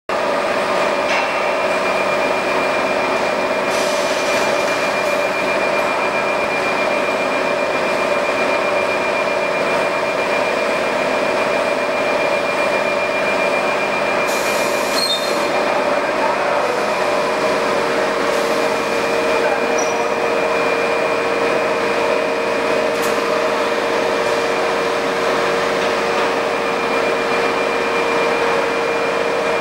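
Three-deck automatic single-needle quilting machine and its conveyors running: a steady mechanical noise with constant whining tones, one of which shifts slightly lower about halfway through.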